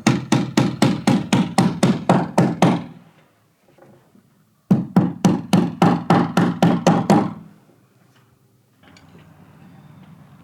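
Rapid strokes of a hand tool working a wooden stair stringer, about five a second, in two runs of roughly three seconds each with a pause between.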